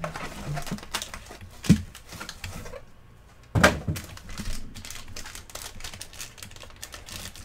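Foil trading-card pack and box wrapping handled in gloved hands: crinkling and rapid small clicks, with two sharp knocks, one a little under two seconds in and one about three and a half seconds in.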